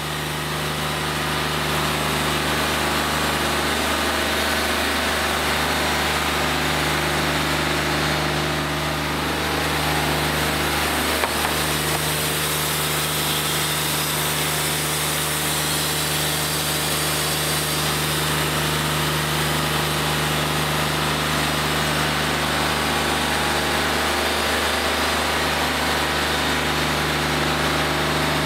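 Wood-Mizer LT40 Wide hydraulic portable sawmill coming up to speed in the first second or two, then running steadily, its engine and band blade sawing boards off a red oak timber. A single sharp tick about 11 seconds in.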